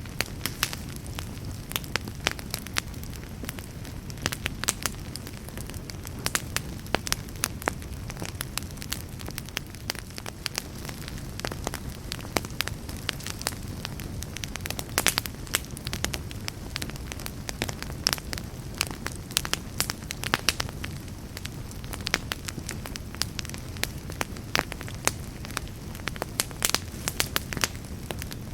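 Fire burning in a fireplace, crackling: a steady low rumble of flame with many sharp, irregular pops and snaps.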